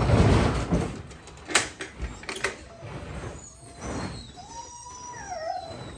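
Diamond-plate aluminum dog box being carried and slid onto a pickup truck bed: a rough scraping rush, then sharp metallic knocks about a second and a half and two and a half seconds in. A short whine rises and falls near the end.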